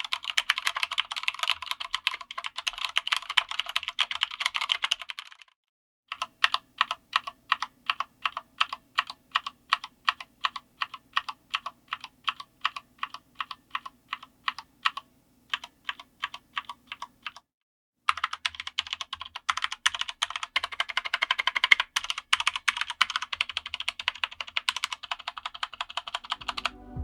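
Typing on a Corsair K65 RGB Mini 60% mechanical keyboard with Cherry MX RGB Red linear switches. There is a run of fast typing, then a brief pause and a series of single evenly spaced keystrokes at about two or three a second, then another pause and fast typing again.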